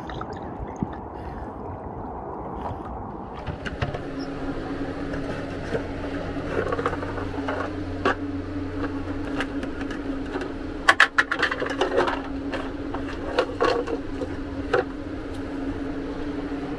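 Lake water and wind noise for the first few seconds, then a steady low hum with clicks and scrapes from a plastic jar of dog biscuits being handled and its screw lid opened, a quick run of clicks about eleven seconds in.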